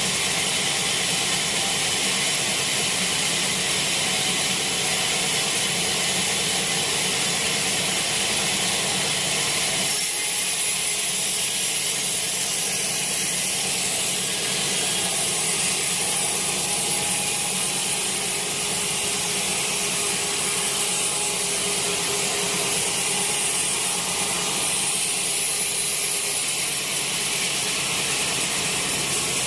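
Sawmill saw running steadily through a teak log, a continuous loud hiss over a low machine hum that lightens slightly about a third of the way in.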